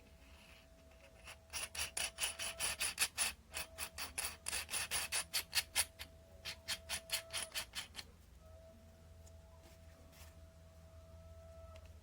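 A quick series of short rasping strokes, about five or six a second, from a hand tool working on a cordless drill's chuck. The strokes break off briefly about three seconds in, then stop about eight seconds in. A faint steady tone and a low hum run underneath.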